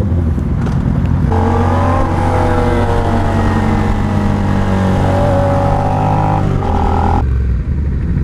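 Motorcycle engine running under way with the pitch held fairly steady. A higher, steadier tone comes in about a second in and drops away sharply near the end.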